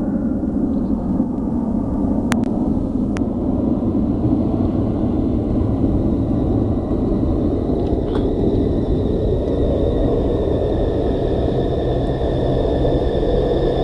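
Steady low rumble in the sky, with a few sharp clicks about two to three seconds in. About eight seconds in, a thin high whine comes in and grows stronger.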